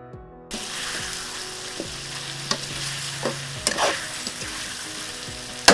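Chicken pieces sizzling as they fry in hot oil with sautéed garlic, onion and ginger, stirred with a utensil that scrapes the pan now and then. The sizzle starts suddenly about half a second in, and near the end the utensil clacks sharply against the pan.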